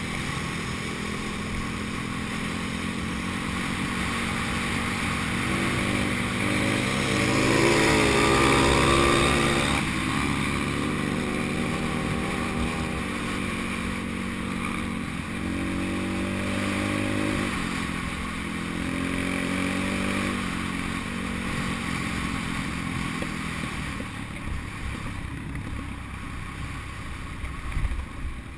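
Pit bike engine running under way on a dirt track, revving up and down. It reaches its highest pitch about eight seconds in, drops off sharply, then climbs and falls back several more times as the throttle and gears change, running lower near the end.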